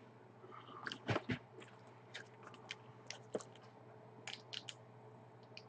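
Faint, scattered crinkles and ticks of plastic shrink-wrap on a sealed trading-card box being handled, with a couple of slightly louder clicks about a second in.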